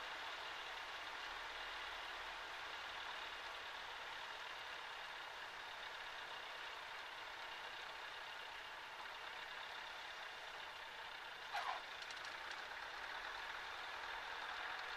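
Steady engine and airflow noise in the cockpit of a Cessna 140A during a touch-and-go landing, with one brief squeal about two thirds of the way through.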